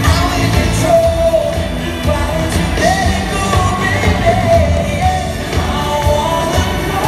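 Live pop-rock band playing, with a male lead singer singing the melody over the band, heard from the crowd in a large arena.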